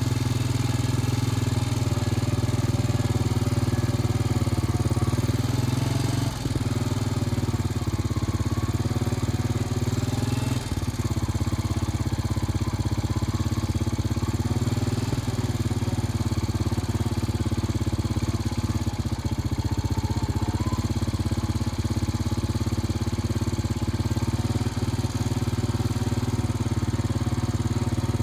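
A small engine running at a steady speed, an even drone that does not change.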